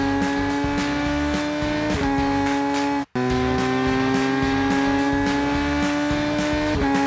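Race-car engine sound effect revving up through the gears: the pitch climbs slowly and drops back at each shift, about two seconds in and again near the end, with a brief cut-out around three seconds in. It plays over background music with a steady beat.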